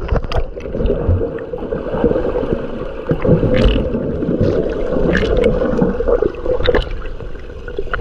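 River water splashing and sloshing close to the microphone, a steady rush broken by many small crackling splashes.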